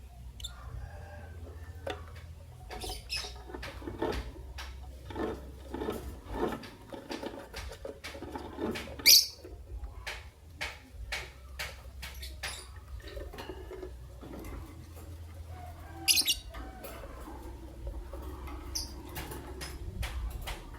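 Lovebirds chattering in quick, short chirps and clicks, with two loud shrill calls, one about midway and one later, over a low steady hum.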